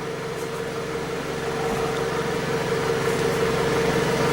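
A steady mechanical hum with a constant mid-pitched tone over a lower, even throb, slowly growing louder.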